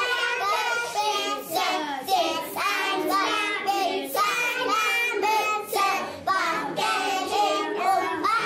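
Young kindergarten children singing a song together, voices high and continuous.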